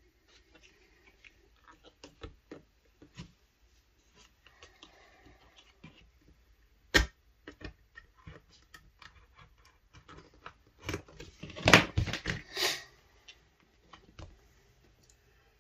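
Handwork at a workbench: scattered light clicks and taps of tools and leather being handled, a single sharp knock about seven seconds in, and a louder burst of clattering knocks between about eleven and thirteen seconds.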